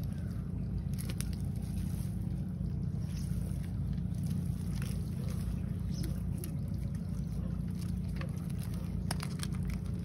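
A steady low rumble, with scattered light rustles and clicks from a collapsible nylon-mesh fish trap being handled and folded.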